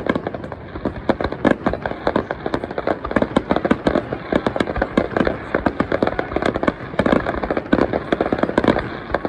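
Aerial fireworks going off in a rapid barrage: many sharp bangs and crackles in quick succession, starting abruptly and keeping up a dense, uneven rhythm of several reports a second.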